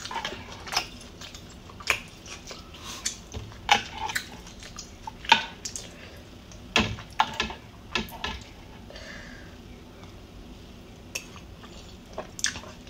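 A metal spoon clinking against a ceramic soup bowl as broth is scooped, in sharp separate clicks, many in the first eight seconds and a few more near the end.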